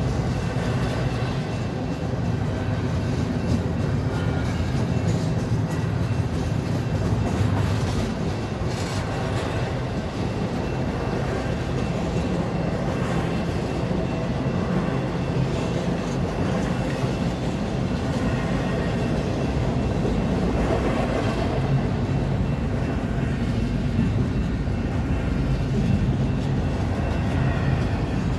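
Freight train's diesel locomotive engine running loud, a steady low drone that holds throughout.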